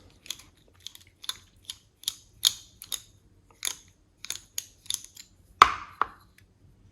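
Light metallic clicks and taps, irregular at about two a second, from a Phillips screwdriver working a screw on an American 1100 padlock as it is taken apart. A louder knock about five and a half seconds in, followed closely by a second.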